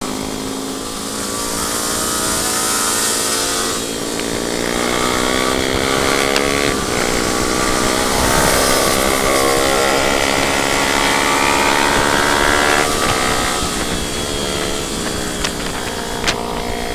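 Motorcycle engine pulling hard under acceleration, its pitch climbing steadily and dropping back at gear changes about four, seven and thirteen seconds in, over a rush of wind noise. Two sharp clicks near the end.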